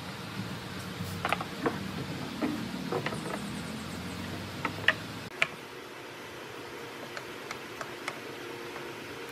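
Scattered sharp clicks and knocks of wood and tools being handled at a workbench, over a steady low hum that drops away about halfway through; a few fainter ticks follow near the end.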